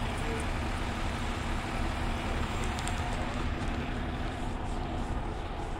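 Motor vehicle engine idling, a steady low rumble, with a few faint light clicks about halfway through.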